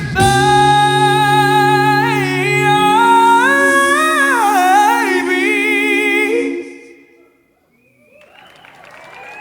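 An a cappella vocal group holds a sustained chord under a deep bass note while a lead voice runs up and down above it. The chord fades out about seven seconds in.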